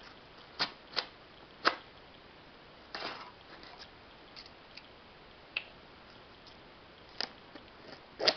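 A butterfly knife slitting packing tape and a plastic invoice pouch on a cardboard box: scattered sharp clicks and taps, with a short scratchy rip about three seconds in and the loudest click near the end.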